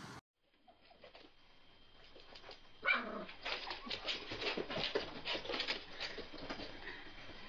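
A dog gives one short yelping whimper about three seconds in. Quick scuffling and pattering of its paws follow as it darts about.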